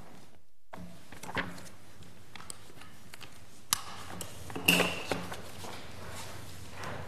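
Paper rustling and pages being turned near a microphone, with scattered light knocks on a lectern or desk; a sharp click a little past halfway and the loudest rustle-and-knock cluster about a second after it.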